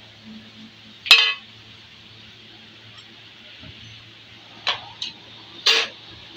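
Metal pieces clinking against each other while being handled in moulding sand: four short, sharp clinks, the loudest about a second in and three close together near the end, over a faint low hum.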